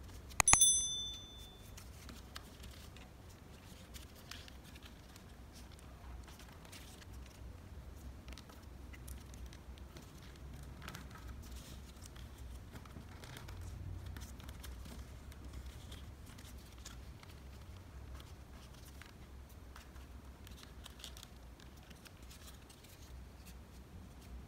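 Sheets of origami paper being folded and creased by hand, with soft rustling and small crinkles throughout. Right at the start a click and a short bright chime ring out: a subscribe-button sound effect.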